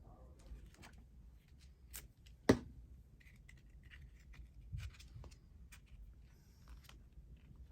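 Paper and craft materials being handled on a work surface: soft rustles and small clicks, with one sharp tap about two and a half seconds in.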